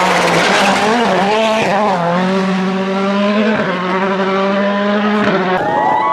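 Volkswagen Polo rally car's engine held at high, steady revs, with brief dips about two and three and a half seconds in; near the end the sound changes abruptly to shifting, curving tones.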